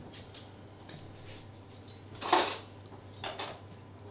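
Kitchen handling clatter from a glass mixing bowl and a foil-lined box of dry baby rice: one sharp clack-and-rustle about two seconds in, and a smaller one about a second later.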